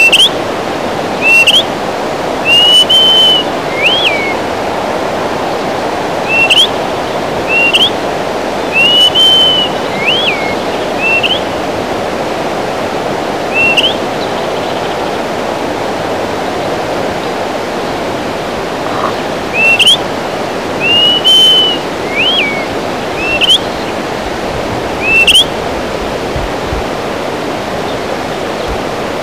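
Greater pewee calling: short, sharp rising whistled notes mixed with a few longer arched notes, singly or in loose runs about a second apart, with a pause of several seconds midway. A steady rushing noise runs underneath.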